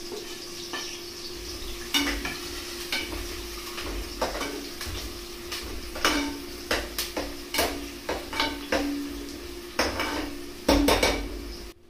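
Metal spoon scraping and clinking against a steel pressure cooker, with irregular clicks, while chopped onion and curry leaves sizzle in hot oil with whole spices. The sound cuts off suddenly near the end.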